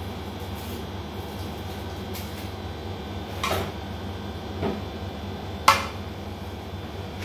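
Metal slotted spatula stirring cooked rice and knocking against the rim of an aluminium pot: three short clinks in the second half, the last one a sharp, loud knock.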